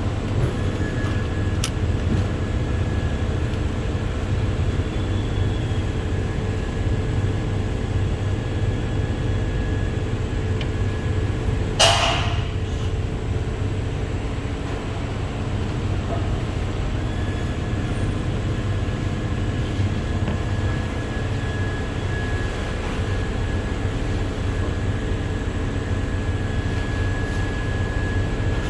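Steady low mechanical rumble with a faint high whine coming and going, and one sharp metallic clank with a short ring about twelve seconds in.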